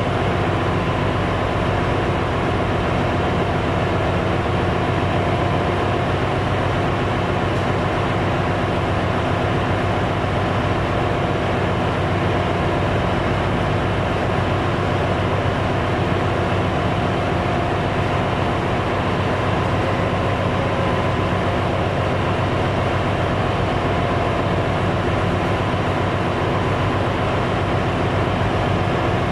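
Steady, loud ship's engine-room machinery noise: a constant hum with several steady tones.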